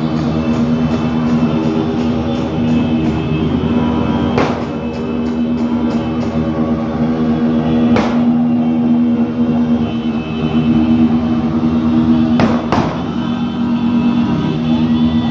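Many motorcycle horns blaring together in one continuous, dissonant chord over running motorcycle engines, with a few sharp cracks about 4 s and 8 s in and twice near 12 s.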